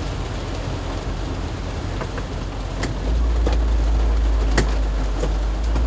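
Heavy rain pelting the roof and windshield of a VW Voyage, heard from inside the cabin, with a few sharp drips ticking on the body. About three seconds in, a steady low rumble comes up under the rain and holds.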